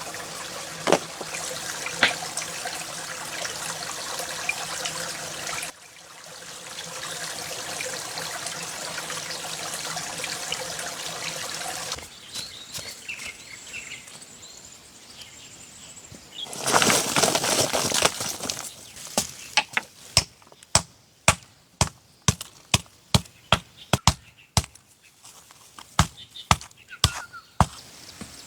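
A steady rushing noise, then a brief loud hiss, followed by a run of sharp, irregular knocks about two a second, like hammer strikes.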